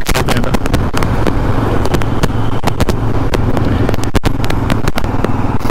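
Steady noise of a road vehicle on the move, with a constant low hum, and wind buffeting the microphone in rapid crackles.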